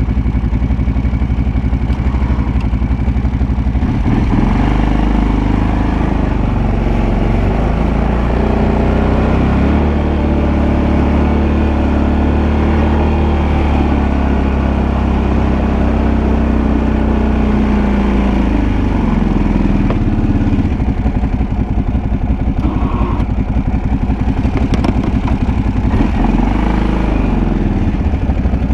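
Freshly rebuilt Kawasaki Brute Force 750 ATV's V-twin engine running under way. It revs up about four seconds in and holds higher revs, then drops back about twenty seconds in to a lower, pulsing idle.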